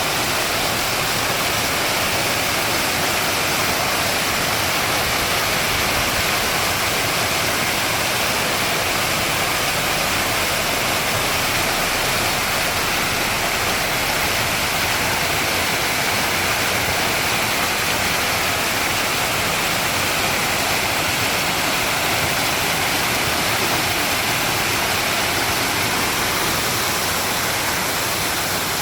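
Flowing water rushing steadily and evenly, without a break.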